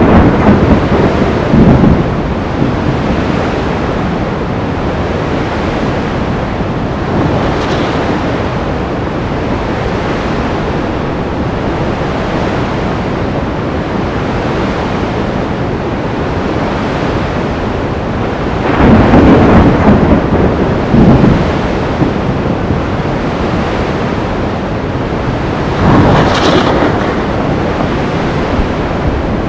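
Stormy sea: a steady roar of surf and wind, rising to louder crashing surges at the start, about two-thirds through and again near the end.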